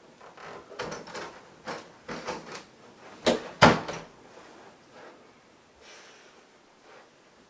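A closet door being opened and knocked about as people push out through it: a run of knocks and bumps, the loudest two close together about three and a half seconds in, then quieter rustling and shuffling.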